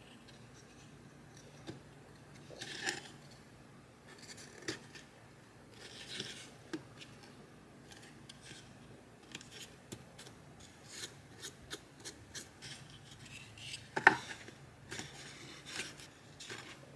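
Small wooden dowel wall panels handled and fitted together at their corners: light wooden clicks, taps and brief rubbing scrapes, with the sharpest knock about 14 seconds in.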